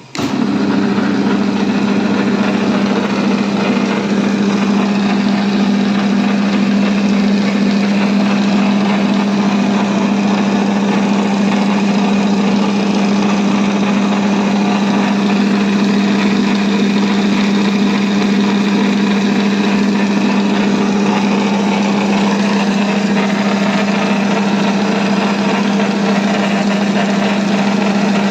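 KFC Krusher machine's belt-driven motor switched on and running with a loud, steady hum and a dense mechanical noise over it. This is an abnormal noise, which the technician puts down to a loose drive belt that has worn and frayed at its edges.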